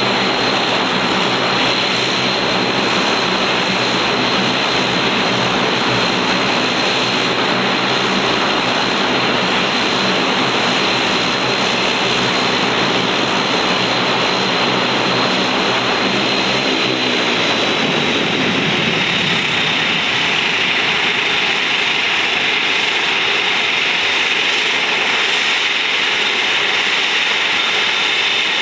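Bombardier Dash 8 Q400's Pratt & Whitney PW150A turboprops running on the ground: a steady high turbine whine over the drone of the propellers. About two-thirds of the way through, the propeller drone falls in pitch as propeller speed drops, and the whine eases slightly.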